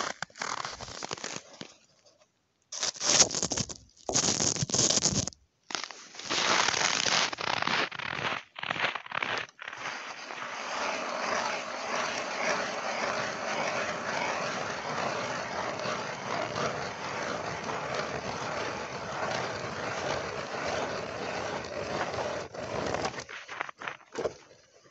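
Hand ice auger cutting through river ice with a steady grinding scrape, from about ten seconds in until it stops near the end. Before that comes a run of short, irregular crunching and scraping noises.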